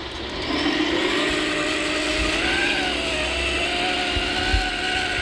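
Electric-driven hydraulic pump and motors of a radio-controlled scale construction machine whining steadily, starting about half a second in, the pitch dipping and rising as the load changes.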